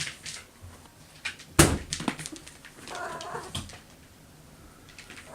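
A house cat gives one short meow about three seconds in, amid scattered clicks and a sharp knock of handling or movement.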